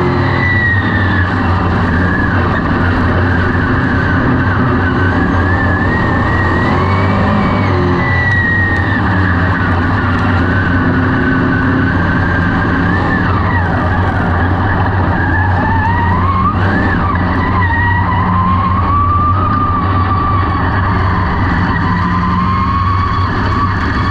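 Dirt-track race car's V8 engine running hard on the track, heard loud from inside the cockpit, its pitch rising and falling with the throttle through the laps.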